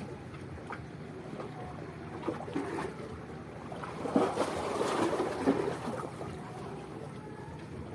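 Steady outdoor noise of wind and small waves at the water's edge, with a louder stretch of rustling and a few knocks about halfway through.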